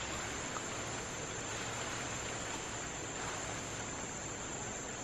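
Steady, even hiss of rainforest ambience under the canopy, with no distinct calls or knocks standing out.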